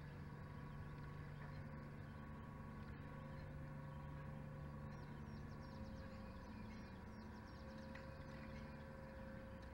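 Faint steady low drone carrying a few steady tones, with a short quick run of high bird chirps about five seconds in.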